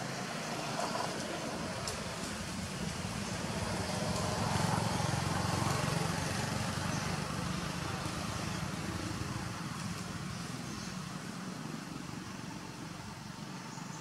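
Low, steady outdoor background rumble with a hiss above it, swelling about five seconds in and then slowly easing off.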